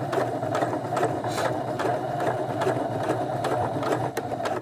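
Sewing machine running steadily in reverse, backstitching a zigzag stitch: an even motor hum with a regular needle clatter that stops abruptly at the very end.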